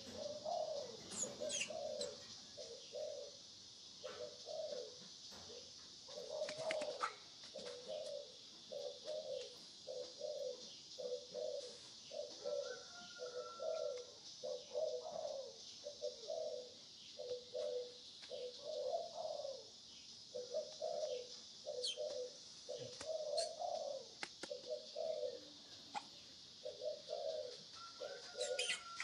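A dove cooing over and over in short low notes, about one and a half a second, over a steady high-pitched hiss, with a couple of brief higher bird whistles.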